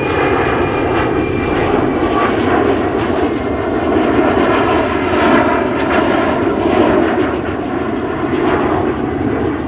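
Boeing 777 jet engines at takeoff and climb power: a steady, even rush of engine noise.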